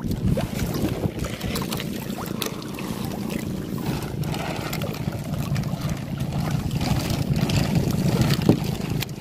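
Small outrigger fishing boat (banca) at sea: a steady low engine drone with wind buffeting the microphone and water splashing against the hull.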